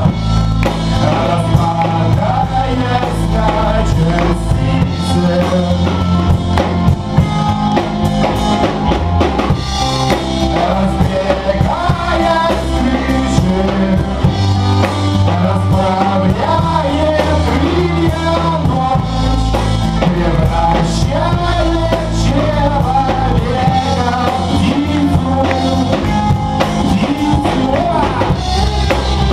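Live rock band playing, with drum kit, a steady bass line and a wavering melody line on top.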